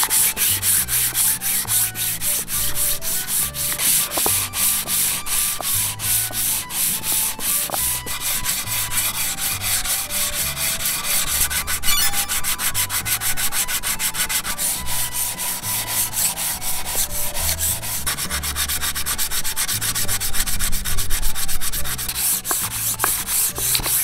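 240-grit sandpaper on a hand sanding block rubbed back and forth over a wooden cutting board: a continuous scraping in rapid, even repeated strokes. This is the medium-grit pass smoothing the board's rough surface.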